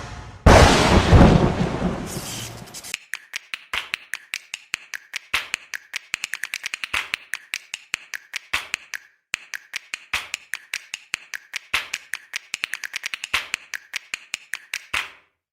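A loud burst of sound for about three seconds that stops abruptly, then an irregular run of sharp clicks or taps, several a second and often bunched in quick clusters.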